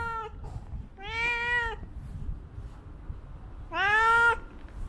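Black stray cat meowing insistently up at a person, begging for food: three meows, the first trailing off at the start, the next about a second in, and the loudest near the end.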